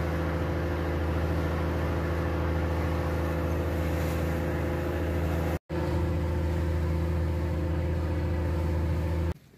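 Outrigger passenger boat's engine running steadily under way, a deep even drone at constant pitch, with a brief dropout just past halfway.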